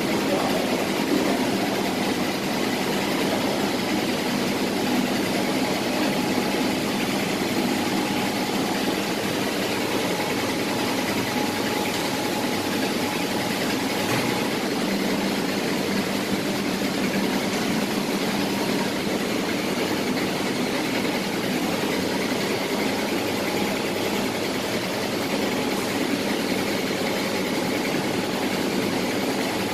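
Industrial tilting fryer for shallots and garlic running: a steady mechanical noise from its motor-driven stirrer and tilting pan.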